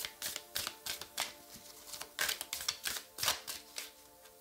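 Deck of cards being shuffled by hand: a quick, irregular run of light flicks and clicks, a little busier in the middle, over faint background music.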